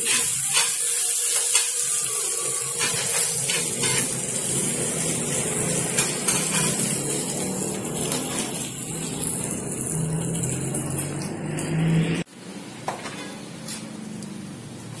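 Sisig frying and sizzling in a pan on a gas stove while a spoon stirs it, with scattered clicks and scrapes of the spoon against the pan. The sizzle cuts off abruptly about twelve seconds in, leaving quieter room sound.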